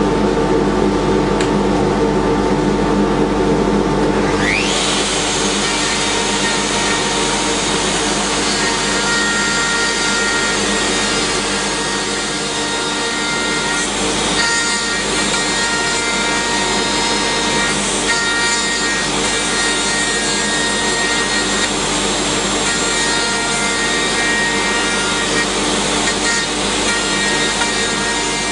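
Router on a Torque Workcentre cutting a recess into a wooden sushi board, over the steady hum of a dust extractor. A whine rises sharply in pitch about four seconds in, and the cutting then runs on steadily with a high whine.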